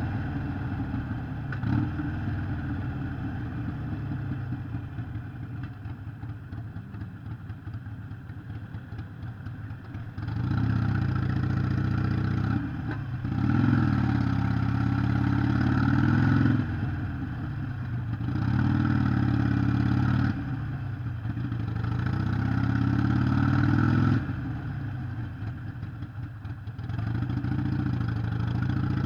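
Harley-Davidson Sportster 883 SuperLow's air-cooled V-twin engine running on the move. It holds steady and quieter for about ten seconds, then pulls louder under throttle in several runs that rise in pitch and drop back.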